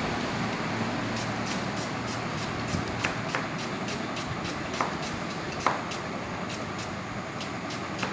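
Chef's knife dicing a carrot on a plastic cutting board: quick regular taps, about three or four a second, with a few sharper knocks, over a steady background rumble.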